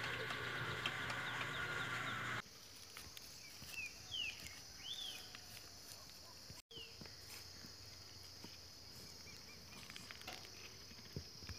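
Rural outdoor ambience. For the first couple of seconds a dense chorus of bird calls plays. After a sudden cut it gives way to a few scattered bird chirps over a steady high insect drone.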